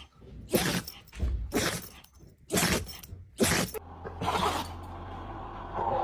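A dog sneezing again and again: about five short, sharp sneezes roughly a second apart.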